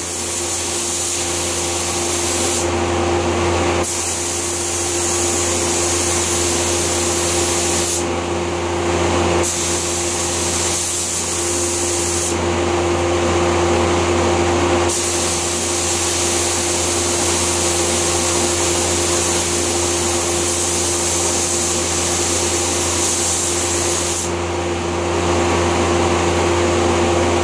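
Gravity-feed paint spray gun hissing as it lays the last coat of off-white paint on a cabinet door, in about four long passes with short breaks between them. A steady machine hum from the air supply runs underneath throughout.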